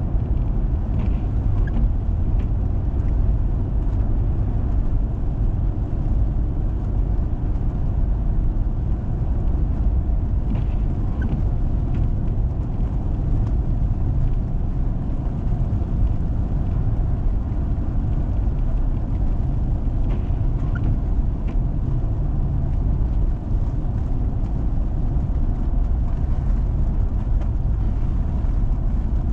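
A 4x4 driving on a snow-covered road: a steady low rumble of engine and tyres, with a few faint short ticks now and then.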